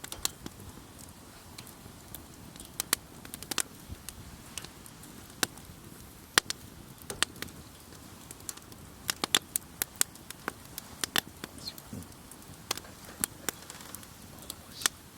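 Wood campfire crackling: irregular sharp pops and snaps, a few each second and bunched more thickly about two-thirds of the way through, over a faint soft hiss.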